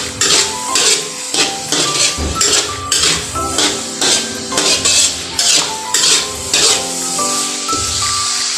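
Metal spatula scraping and clanking against a metal wok as ground meat is stirred, about two to three strokes a second. Background music plays underneath.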